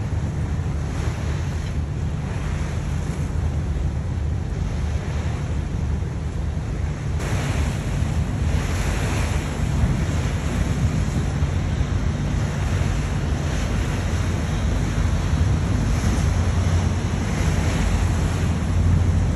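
Open-deck ferry ride: wind buffeting the microphone and water rushing past the hull over a steady low rumble from the ferry's engine. The wind and water hiss gets louder about seven seconds in.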